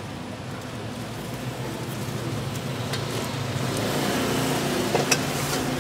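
Street traffic: a motor vehicle's engine running steadily and growing louder over a few seconds, with two sharp clicks, one about three seconds in and one near the end.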